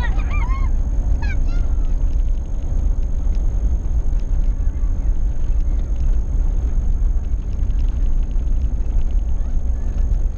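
Steady low rumble of a vehicle driving, heard from inside the cabin, with a thin steady high whine over it. In the first second or so, children at the roadside give several short high calls.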